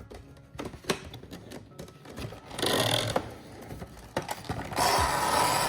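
Box of a diecast model being handled and opened: a few light clicks and taps, then a brief stretch of cardboard and plastic packaging scraping and rustling, and a longer, louder one near the end.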